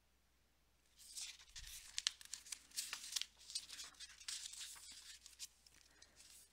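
Pages of a picture book being turned, the paper rustling in quick, irregular crackles that start about a second in and die away near the end.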